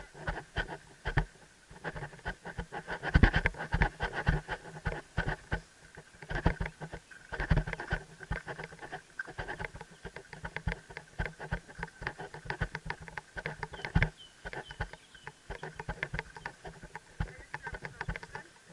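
Helmet-mounted camera knocking and rattling against the rider's helmet as it is jostled by the horse's walking gait: many irregular knocks, several a second.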